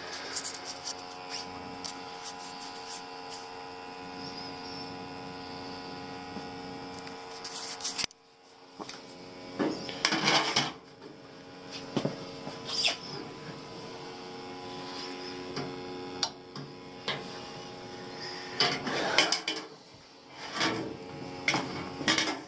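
Steady electrical hum from the old boiler's running equipment, with a brief dropout about eight seconds in, and scattered knocks and handling rustles.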